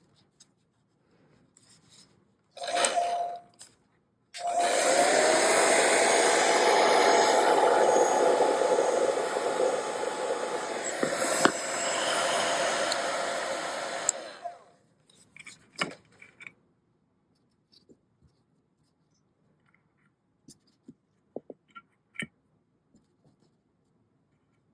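Electric hot-air blower run briefly, then switched on again for about ten seconds: a steady rush of air with a motor whine. It is heating the beeswax that holds accordion reed plates on the reed block, to soften it. After it stops there are a few light clicks and taps, as the loosened reed plates are handled.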